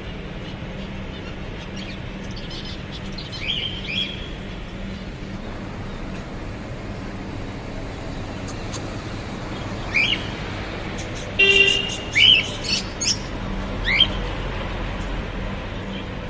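Birds chirping in short, quick rising calls: a pair about four seconds in, then a busier run of calls later on, over steady background noise.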